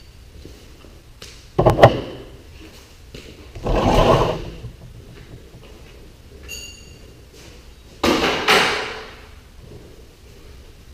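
A sharp double knock about one and a half seconds in, then two longer scraping, sliding sounds, one about four seconds in and one about eight seconds in, with a short faint high chirp between them.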